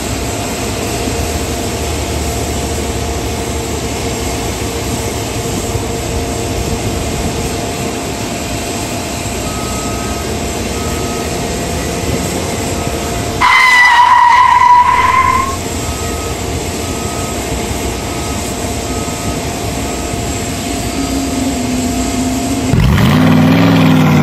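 Boeing 777 jet engines running at taxi power: a steady rumble with a constant whine. A vehicle beeps repeatedly about twice a second through the second half, and a loud tone sounds for about two seconds near the middle. Near the end a nearby engine revs up loudly, rising and dipping in pitch.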